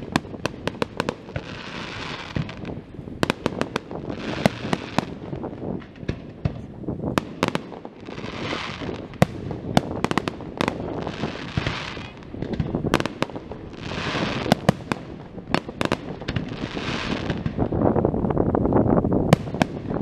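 Aerial firework shells bursting in a display: many sharp bangs in quick succession, with a hissing crackle lasting about a second every couple of seconds and a heavier low rumble near the end.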